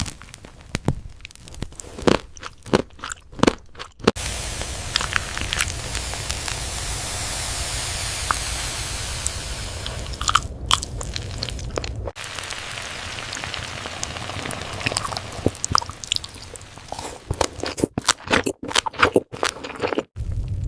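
Eating sounds: crisp crunching bites and chewing, loudest in quick clusters at the start and near the end, with a steady hiss filling the stretch between them.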